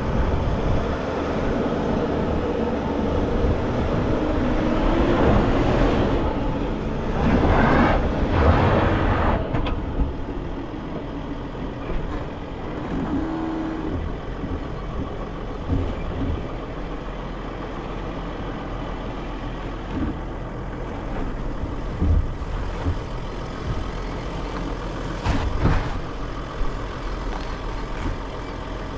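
2021 Sprinter 4x4 van driving slowly on a sandy dirt track, heard from outside the van: the engine pulls with a pitch that rises and falls over the first ten seconds or so. It then settles into a quieter steady run with tyre noise and a few thumps over bumps.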